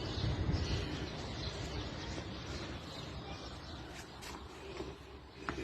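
Low rumble of street traffic with birds chirping faintly over it; the rumble eases off after the first couple of seconds.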